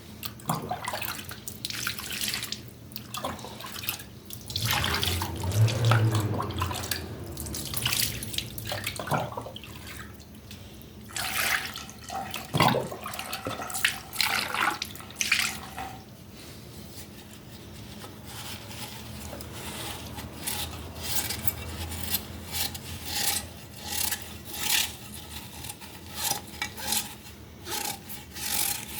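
Water splashing and running in a sink, broken into irregular bursts, with a string of short sharp strokes in the second half.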